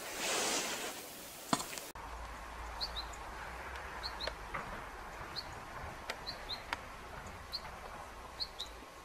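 A brief rush of noise in the first second, then small birds chirping in short high notes, scattered irregularly, over a steady low hum.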